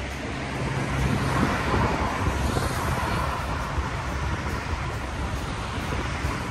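Road traffic noise at a city intersection: a steady rumble of cars, with one vehicle passing and swelling louder about one to three seconds in.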